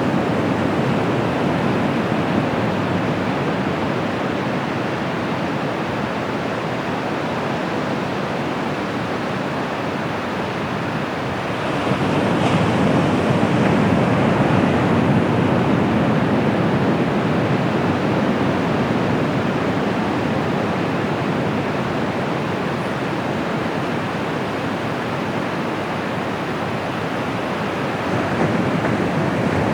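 Bay of Bengal surf washing onto the beach: a steady roar of breaking waves that swells louder about twelve seconds in and again near the end.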